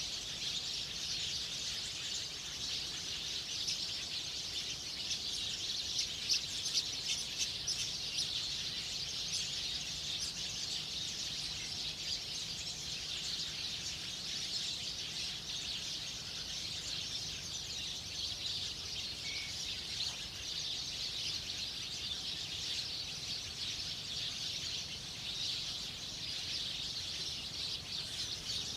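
Wild birds chirping in a dense, steady high-pitched outdoor chorus, with a cluster of sharper, louder chirps about six to eight seconds in.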